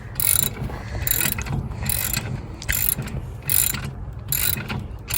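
A hand ratchet wrench clicking in repeated short strokes, a little more than one stroke a second, as a bolt is tightened on a bike rack.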